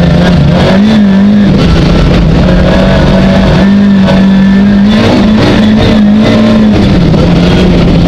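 Rally car engine heard from inside the cabin, running hard under load, loud throughout. The engine note rises and drops several times as the throttle and revs change.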